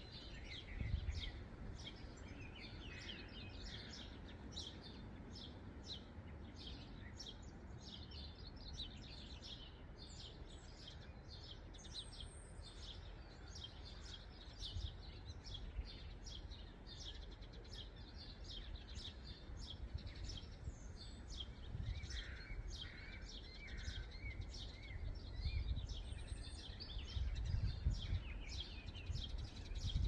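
Spring birdsong: several songbirds singing and calling at once, a dense mix of short high notes and trills. A low rumble runs underneath and grows louder near the end.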